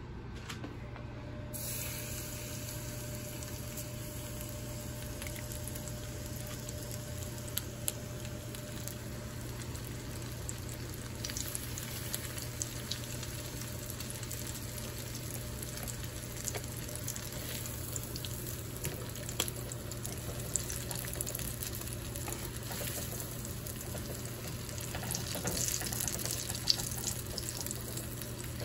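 Breaded mozzarella sticks deep-frying in a small pan of hot oil: steady sizzling and bubbling with scattered crackles and pops, over a steady low hum.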